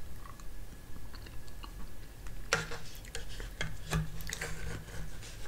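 Small eating sounds: quiet mouth noises of eating soft gelatin from a spoon, with a few sharp clicks of the spoon against the plastic snack cup about two and a half to four seconds in.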